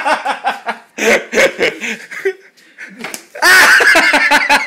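People laughing in short, pulsing bursts, then a loud shriek of laughter about three and a half seconds in.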